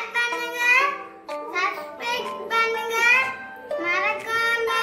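A young girl singing over background music, her voice gliding up and down in long melodic phrases.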